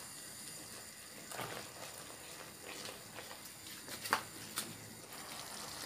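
Thick peanut-butter and coconut-milk satay sauce simmering in a pan: a faint bubbling with a few scattered pops from bursting bubbles, the sharpest about four seconds in.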